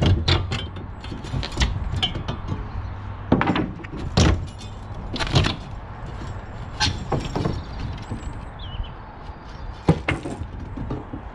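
Wooden roof battens being struck and prised off the rafters with a hand tool: irregular sharp knocks and clatters of wood, a second or more apart.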